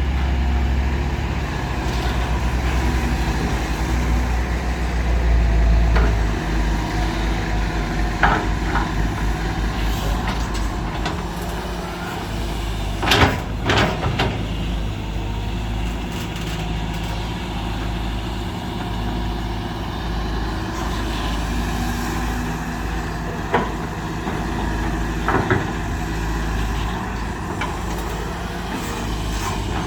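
Heavy diesel engines of an excavator and dump trucks running steadily at an earthwork site, louder in the first few seconds. A few short hisses cut through, the strongest about 13 seconds in.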